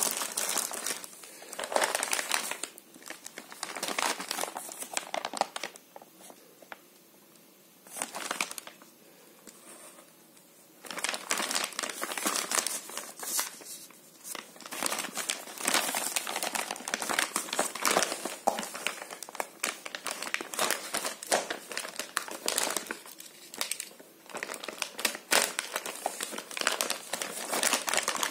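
Clear plastic packaging bags crinkling and rustling as hands handle and open them, in irregular bursts with a lull of a few seconds partway through.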